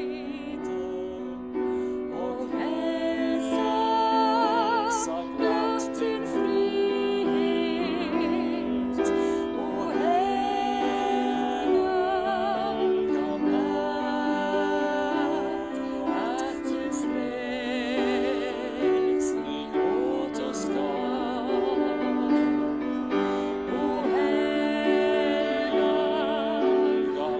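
A woman singing solo, holding long notes with strong vibrato over a steady, sustained accompaniment.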